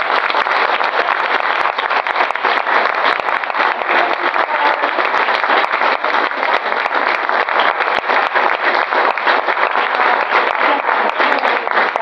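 Audience applauding: many hands clapping densely and steadily.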